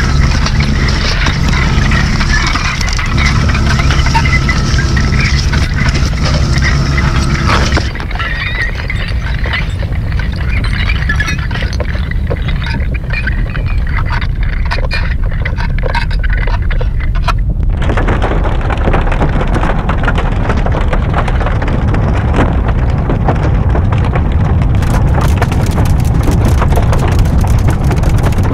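Harsh noise and musique concrète: a loud, dense wall of rumbling, crackling noise that switches abruptly between textures. At first a few steady tones sit in it. About eight seconds in it cuts to a thinner layer of clicks. Near seventeen seconds it jumps to a thick, steady roar, and crackling is added near twenty-five seconds.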